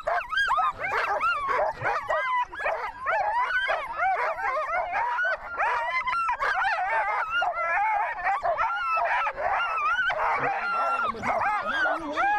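A chorus of many sled dogs barking, yipping and howling together, the calls overlapping without a break.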